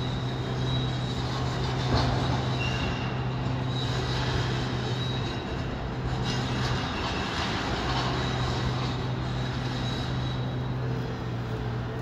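Heavy diesel demolition machinery running steadily, with thin high metallic squeals over the engine hum and a single knock about two seconds in.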